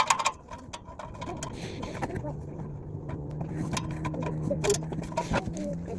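Scattered metallic clinks and taps of a hand tool working the clamp screws of an exhaust tip, over a steady low hum.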